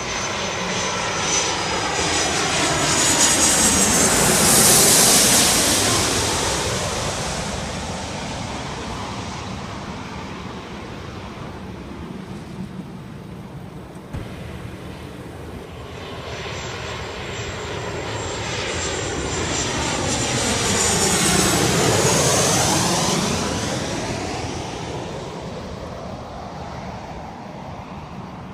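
Two jet airliners passing low overhead one after the other, each swelling to a peak and fading away. The first peaks about five seconds in and the second about twenty-two seconds in, each with a high engine whine.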